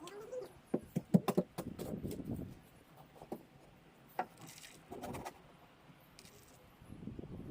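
A quick run of sharp clicks and knocks about a second in, then a few scattered single knocks and soft rustling.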